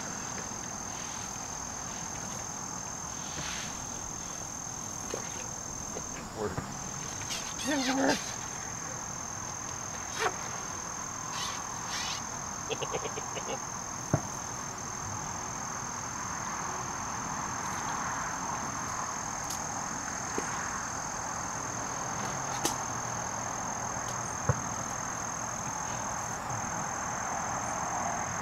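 A cricket trilling steadily on one high note, broken only by two brief gaps, with a few scattered clicks and knocks over it.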